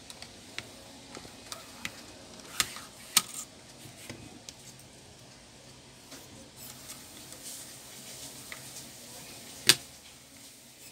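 Irregular clicks and taps of hands handling a bare desktop motherboard's parts (RAM module, cables) on a bench, with two sharp clicks around two and a half to three seconds in and the loudest, sharpest click near the end.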